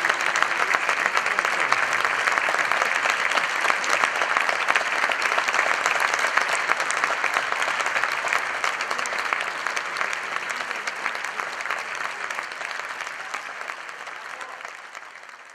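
Audience applauding, a dense clapping that slowly dies away over the last few seconds.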